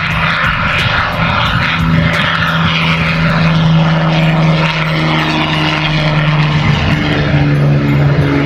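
Supermarine Spitfire Mk IX's Rolls-Royce Merlin V12 engine and propeller running loud and steady as the plane takes off and climbs away.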